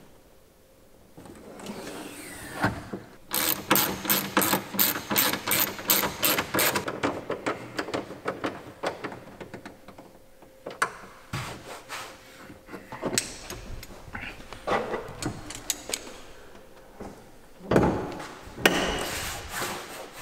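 Hand tools working on a car: a ratchet wrench clicking in a quick run of about three to four clicks a second, followed by scattered knocks and clanks of metal parts, with a couple of louder bangs near the end.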